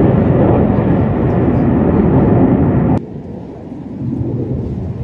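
Loud, steady jet noise from KAI T-50B aerobatic jets flying past, which breaks off suddenly about three seconds in, leaving a quieter, more distant rumble of jet engines.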